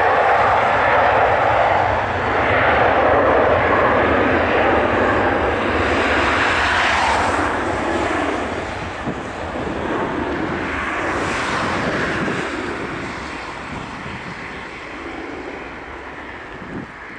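Ryanair Boeing 737-800's twin CFM56-7B turbofan engines at takeoff thrust: a loud, steady roar through the takeoff roll and lift-off, fading over the last few seconds as the jet climbs away.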